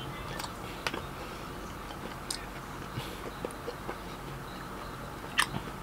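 Eating sounds: a few short, soft mouth clicks and smacks of someone chewing, spaced irregularly over a low steady hum.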